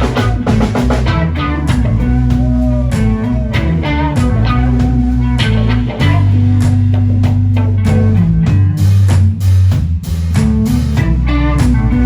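A live blues-rock band playing: guitar over bass and a drum kit, with bending melodic lines and steady drum hits.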